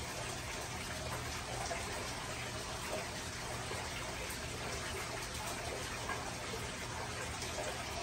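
Steady rushing and trickling of aquarium water, with a faint low hum underneath.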